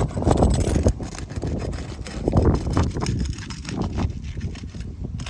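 Wind rumbling on the microphone, with short scraping and crackling as a pry bar works under an asphalt shingle to break its seal.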